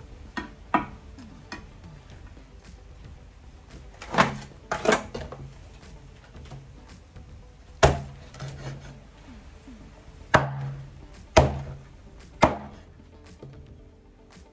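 Cooked jerk chicken being chopped with a knife: about eight heavy chops at uneven intervals, some close together in pairs, each a sharp knock with a short, dull ring.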